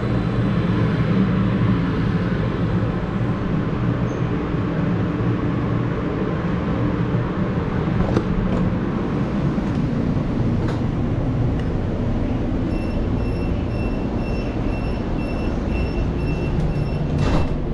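CTrain light-rail car standing at a platform with a steady low hum, then about thirteen seconds in a run of evenly spaced high beeps, a few a second: the door-closing warning chime. A sharp knock near the end as the beeps stop.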